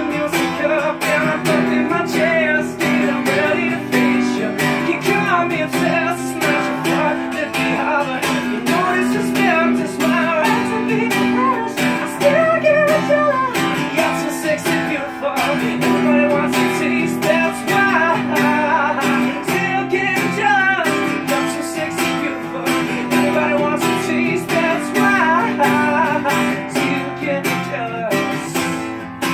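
Acoustic guitar strummed steadily in a slow song, with a man singing over it in long, wavering held notes.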